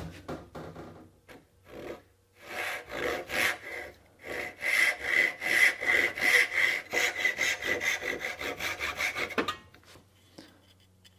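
Brass-backed backsaw sawing a thin strip of cherry by hand. A few uneven strokes start the cut, then quick, steady strokes follow at about three or four a second, and the sawing stops about a second and a half before the end.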